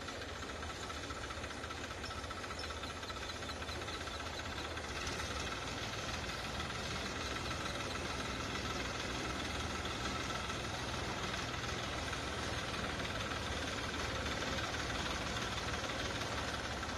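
Mahindra 495 DI tractor's three-cylinder diesel engine running steadily, getting a little louder about five seconds in.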